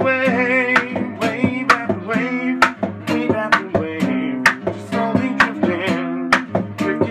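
Acoustic guitar strummed in a percussive pattern, with sharp slaps on the strings about twice a second, under a man's singing voice.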